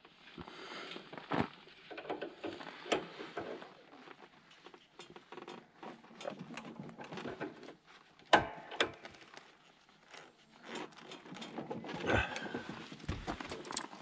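Irregular light clicks, taps and knocks of hands handling tools and metal parts, with a louder knock about a second in and another about eight seconds in.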